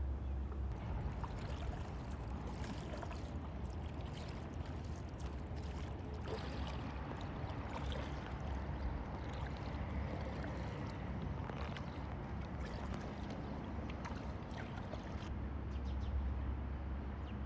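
Kayak paddle strokes dipping and splashing in floodwater, with irregular small splashes and knocks, over a steady low rumble.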